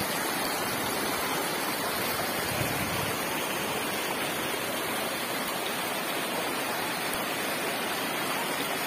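River water rushing over rocks in shallow rapids: a steady, even rush of white water.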